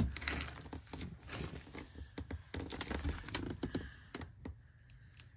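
Handling noise from the camera being moved and repositioned on its mount: a run of clicks, knocks and rubbing with dull thuds, busiest in the first four seconds and thinning out near the end.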